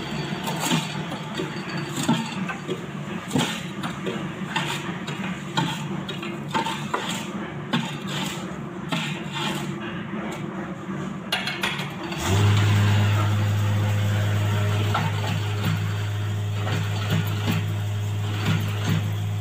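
Semi-automatic hollow concrete block machine: for about twelve seconds, scraping and knocking of a metal rod working concrete mix into the mould, then the machine's electric vibrator motor starts suddenly and runs with a loud steady hum, vibrating the mould to compact the blocks.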